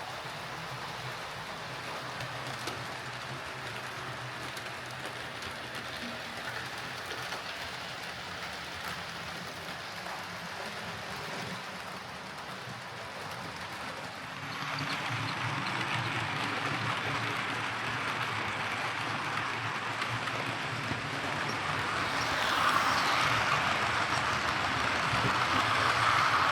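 Hornby OO gauge Class A4 Mallard model locomotive running on layout track, with its refitted drive gear back on the axle spline. Its motor and wheels on the rails make a steady whir that grows louder about halfway through and is loudest near the end as it nears.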